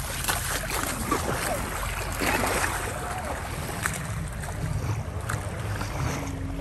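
Steady wind noise on the microphone over lake water, with scattered small clicks.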